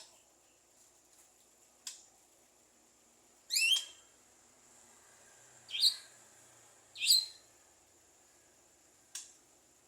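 Javan myna calling: three loud, short, high-pitched chirps a second or two apart, with a single sharp click-like note before and after them.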